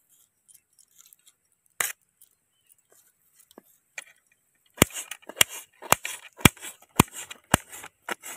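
Knife chopping green bell pepper on a metal plate, the blade striking the plate with sharp ringing clicks. A few light taps and one sharp click come first, then from about five seconds in a steady chopping rhythm of about two strokes a second.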